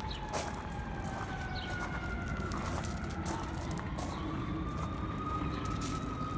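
Emergency vehicle siren wailing, its pitch falling slowly and then rising again about halfway through, over a steady low background rumble. A few short clicks are scattered through it.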